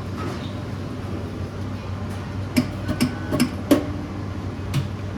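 Debit payment terminal handled at a drive-thru window: a quick run of sharp clicks about halfway through with a brief beep among them, then one more click, over the steady low hum of the car idling.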